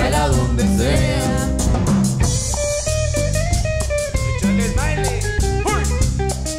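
Live cumbia band playing an instrumental passage: a bending electric guitar lead over bass, drum kit and hand percussion.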